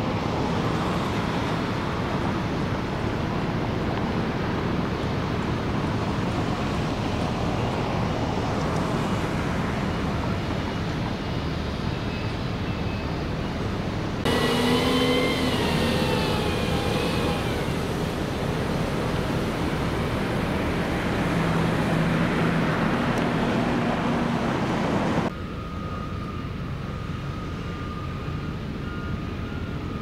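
Steady outdoor construction-site and road-traffic noise. About halfway in it cuts to a louder stretch where a truck engine's pitched hum wavers up and down for a few seconds. Near the end it cuts to a quieter background with a faint high tone coming and going.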